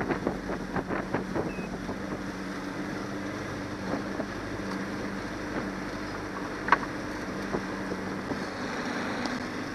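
Johnson 90 hp V4 outboard motor running with a steady low hum as the small boat crosses choppy water, with wind on the microphone. There is a cluster of short knocks and slaps in the first second or two, and a single sharp click about two-thirds of the way in.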